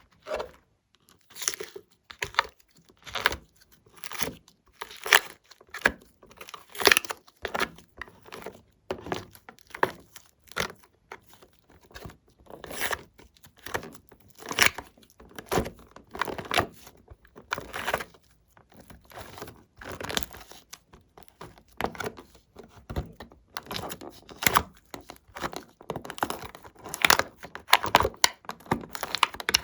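Glossy slime being kneaded and stretched by hand, a sticky crackle with each press and pull, about once a second at first and coming faster near the end.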